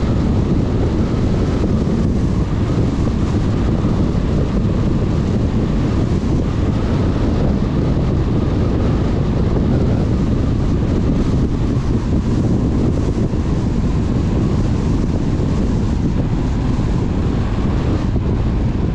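Steady road and wind noise from a car driving at speed, an even rush heaviest in the low end that keeps the same level throughout.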